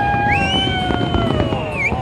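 New Year fireworks popping and crackling in quick, irregular succession, under several long held tones of music that slide slowly in pitch.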